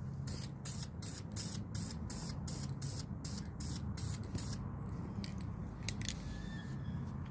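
Aerosol spray paint can sprayed in quick short bursts, about three a second, then a few scattered bursts that stop about six seconds in: light passes of paint over a 3D-printed PLA piece.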